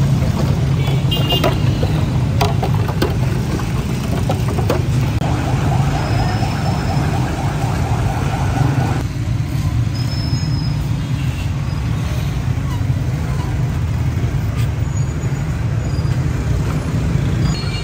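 Steady low rumble of busy street traffic, with a few sharp clicks in the first five seconds.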